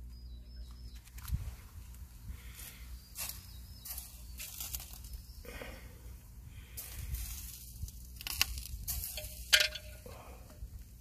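Fat dripping from pork belly onto lit charcoal inside an earthenware jar barbecue, hissing and crackling in irregular bursts, the sharpest near the end. There is a low knock about a second in.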